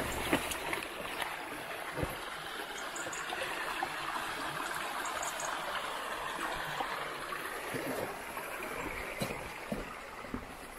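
Running water of a small stream: a steady rushing, with a few faint clicks over it.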